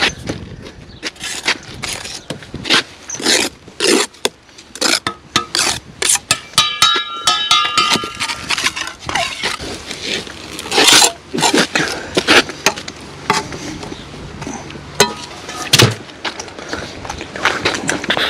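Bricklaying trowel work on concrete blockwork: a steel trowel repeatedly scrapes mortar and knocks against blocks in quick, irregular strokes and taps. A brief ringing tone comes about seven seconds in.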